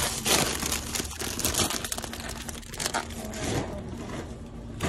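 Plastic crinkling and rustling as a gloved hand rummages through a black plastic bin bag full of bagged and wrapped produce: irregular crackles and crunches that thin out near the end.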